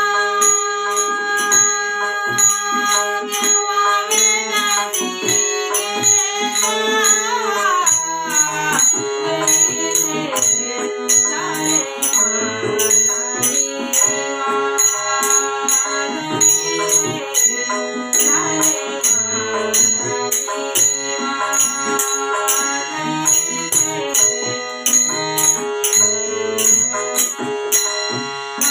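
Music: a melody over a steady held drone, with a regular jingling, rattling percussion beat.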